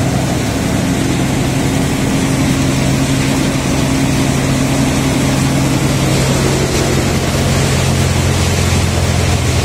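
Multicrop thresher running steadily while threshing paddy: a constant mechanical drone with a low hum under a continuous hiss, the pitch of the hum shifting slightly about six seconds in.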